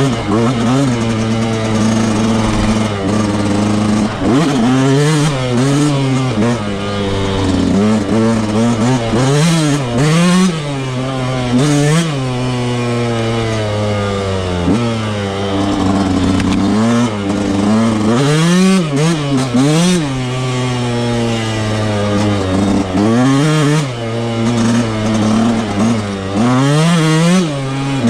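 Yamaha YZ125's single-cylinder two-stroke engine being ridden off-road, revving up and down over and over as the throttle is opened and closed, with a steadier engine note running underneath.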